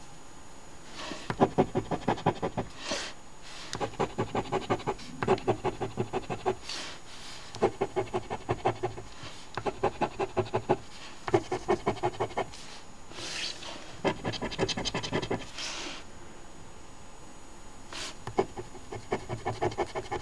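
A coin scratching the latex coating off a paper scratch-off lottery ticket in quick back-and-forth strokes, about eight a second. The strokes come in runs of a second or two, with short pauses between.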